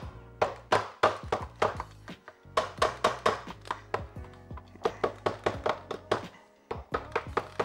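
A yellow-headed mallet tapping repeatedly on the aluminium valve cover of a Honda CB550 four-cylinder engine, working it free of its stuck gasket. The sharp taps come in quick runs with short pauses, over steady background music.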